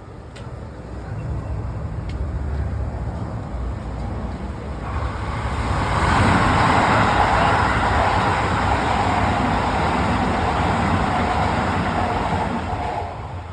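Keikyu limited express train passing at high speed. A low rumble builds over the first few seconds, then a loud rush of wheels and wind from about five seconds in, dying away near the end.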